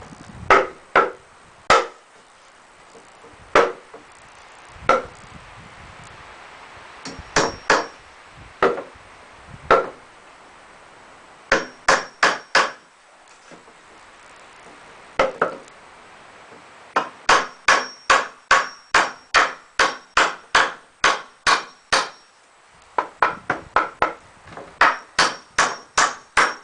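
Hammer driving nails into pallet-wood boards: groups of sharp strikes, building to a run of about a dozen evenly spaced blows, roughly two a second, in the second half.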